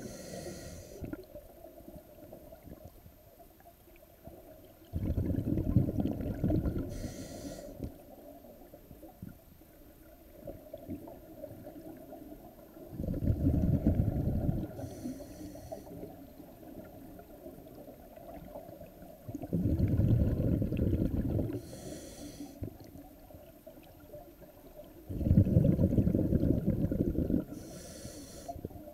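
Scuba diver breathing through a regulator underwater: four low bubbling bursts of exhaled air, about two seconds each and some six to seven seconds apart, each followed by a short hiss from the regulator on the inhale.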